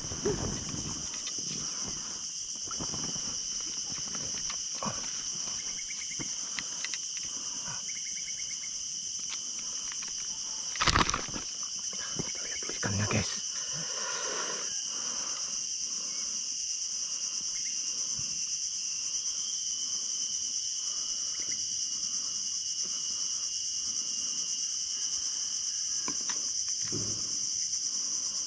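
Steady, high-pitched drone of insects chorusing, with a couple of short knocks about 11 and 13 seconds in.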